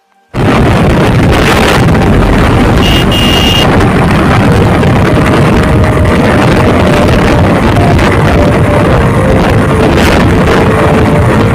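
Loud wind rush buffeting the microphone over the running engine of a KTM Duke 250 single-cylinder motorcycle at road speed. A brief high-pitched beep sounds about three seconds in.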